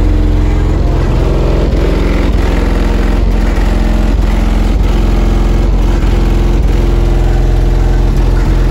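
Music played at high volume through two Skar Audio DDX 12-inch subwoofers in a custom box tuned to 38 Hz, heard from outside the car. Deep bass dominates, steady and loud.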